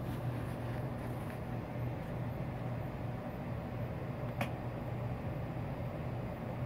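Steady low machine hum, like a running fan or other appliance motor, with a single brief click about four seconds in.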